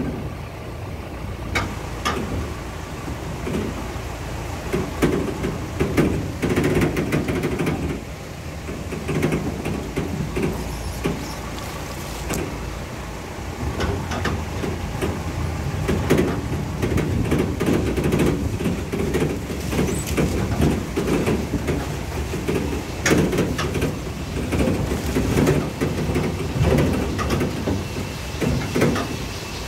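A car driving over a rough, muddy dirt track, heard from inside: a steady low rumble of engine and tyres with frequent knocks and rattles from the body jolting over the ruts.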